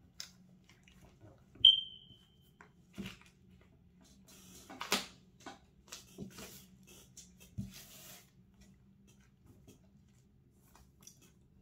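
Hands squeezing and fiddling with a soft foam squishy toy on a tabletop: scattered small taps, rubs and rustles. One short, loud, high-pitched tone sounds about a second and a half in.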